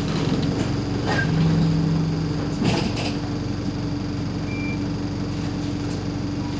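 Inside a moving bus: steady engine and road drone with a few short rattles and knocks near the middle. Brief high-pitched squeaks come about a second in and again at about four and a half seconds.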